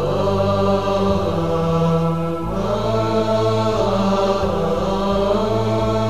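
Intro music: a chant with long held notes over a steady low drone, the melody moving to new notes a couple of times.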